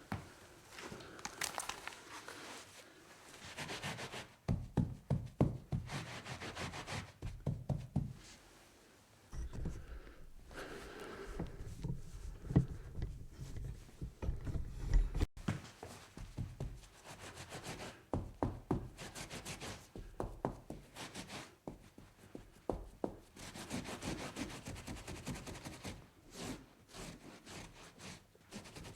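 Wiping and scrubbing on a tabletop during a spill clean-up: rubbing strokes mixed with many short knocks and taps.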